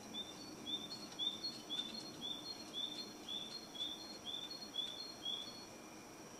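A bird calling: a regular series of about eleven short, high chirps, about two a second, that stops about five seconds in, over a faint steady high whine.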